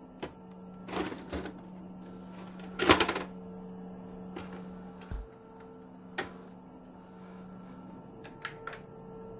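VHS video recorder clicking and clunking as a cassette is handled and its buttons are pressed, the loudest clunk a little under three seconds in, over a steady electrical hum.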